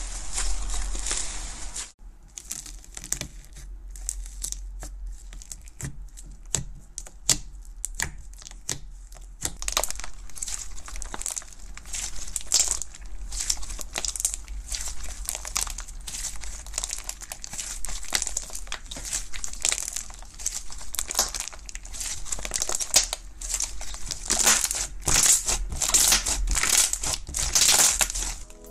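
Hands squeezing, stretching and kneading slime, giving a run of small crackling clicks and pops. The crackling grows denser near the end.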